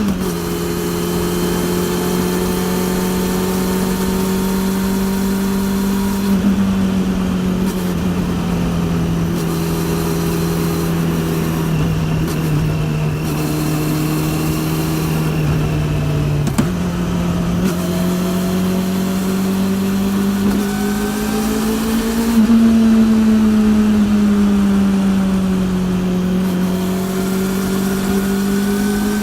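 A Honda CB400's inline-four engine running through a TSR E02 slip-on exhaust while riding, at a fairly steady pitch. The pitch sags slowly, breaks and jumps up a little past halfway, swells again a few seconds later and eases off, then climbs once more near the end.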